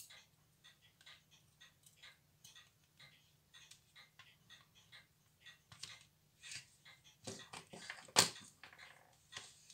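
Faint, scattered small clicks of steel tweezers and tiny metal parts on a Tissot pocket watch movement, coming thicker in the second half, with one sharper knock a little after eight seconds in.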